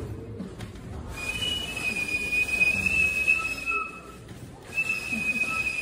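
A high, steady whistling tone, held for about two and a half seconds, breaking off shortly before the four-second mark and starting again about a second later. A fainter, lower tone comes in briefly now and then alongside it.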